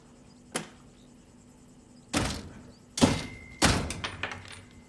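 Old mechanical cash register being rung up: a light click, then three heavy clunks from the mechanism and drawer. A short clear ring follows the second clunk.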